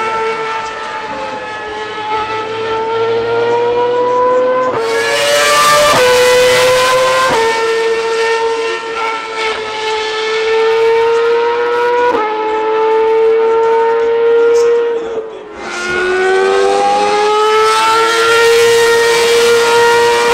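Naturally aspirated V8 engines of Ferrari Formula 1 cars screaming at high revs on track, the pitch climbing and then jumping at each quick upshift, several times over. About three-quarters of the way through the note drops away briefly, as on a lift, then climbs again.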